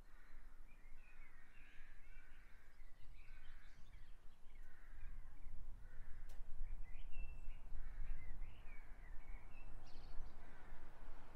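Small birds chirping and singing on and off, over a low rumble that grows louder about halfway through.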